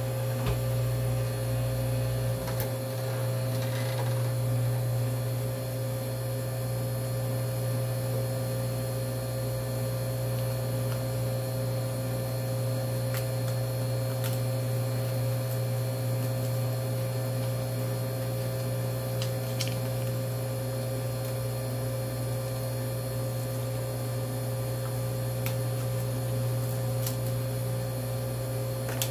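Steady low electrical hum of a running chest freezer, with a few faint clicks of handling.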